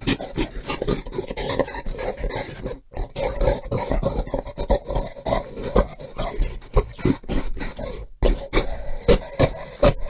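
Gorilla vocalising in a dense, rapid run of short, rough calls, with two brief breaks, about three seconds in and again about eight seconds in.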